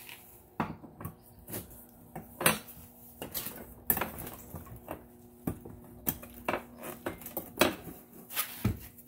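Metal frame poles of a Home Depot pirate ship prop knocking and clinking as they are handled and slid into the frame: irregular sharp clicks and clanks, over a faint steady hum.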